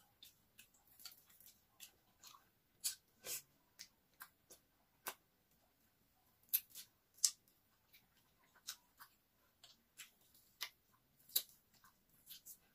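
An orange being peeled by hand close to the microphone: irregular crisp clicks and snaps as the peel tears away, with some chewing.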